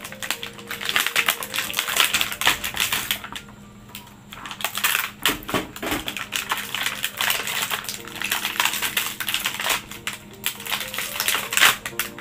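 Clear plastic blister packaging crackling and crinkling in quick, irregular clicks as it is pried off its card backing and handled, with a quieter stretch about four seconds in.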